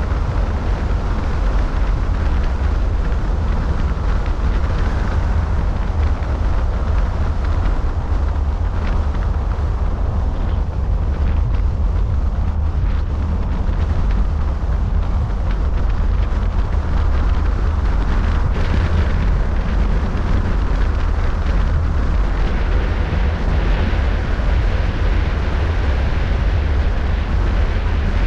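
Wind buffeting the microphone of a camera mounted on the roof of a moving car, with the car's road noise underneath: a steady low rumble.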